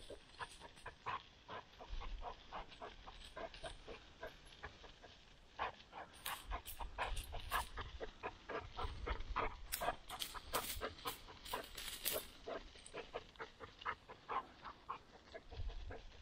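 Pachón Navarro hunting dog panting and pushing through tall, dry, brittle weeds while it searches for a wounded quail. The dry stalks make a quick run of crackling rustles that is busiest and loudest in the middle.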